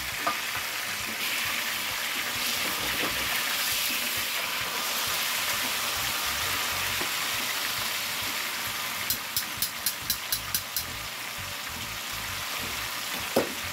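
Chuck roast sizzling as it sears in hot oil in a metal roasting pan, a steady hiss. About nine seconds in comes a quick run of about eight light clicks, and a single knock near the end.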